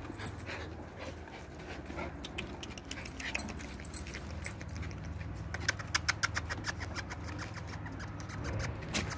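Dogs and puppies moving about on a wooden deck, their claws clicking on the boards, with a quick run of clicks about six seconds in.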